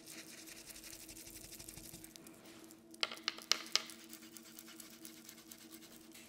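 A paintbrush dry-brushing paint onto a watercolor-paper bow tie: a faint, fast scratchy rubbing, then a handful of sharp taps about three seconds in.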